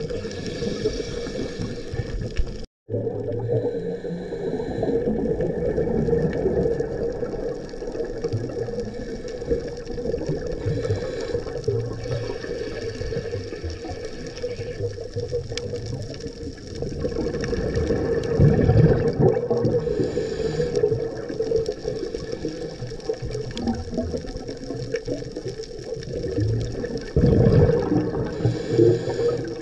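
Underwater sound picked up by a diver's camera: a steady muffled wash of water noise, swelling into louder rushes of scuba exhaust bubbles about 18 seconds in and again near the end.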